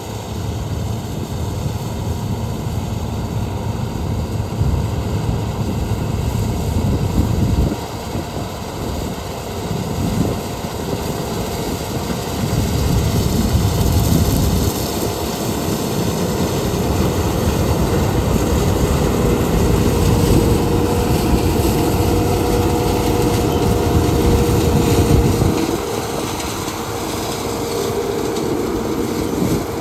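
Heavy harvest machinery running continuously: a loud engine with a deep rumble and a faint steady whine that grows clearer about two-thirds of the way through.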